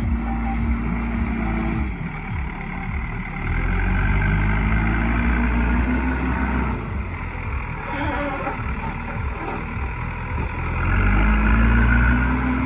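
JCB 3DX backhoe loader's diesel engine running and revving up under load twice, a few seconds in and again near the end, each time settling back down as the machine digs and lifts mud.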